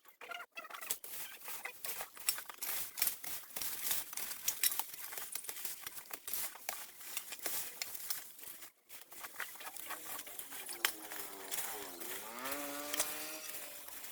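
Rapid, dense scraping and crackling throughout, the sound of debris or brush being handled. Near the end a pitched call with a clear tone falls and then rises again over about two seconds.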